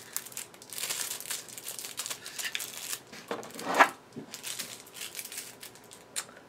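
Paper and cardboard packaging rustling and crinkling as a small box and a card booklet are handled, with a louder rustle a little before four seconds in and a sharp tap near the end.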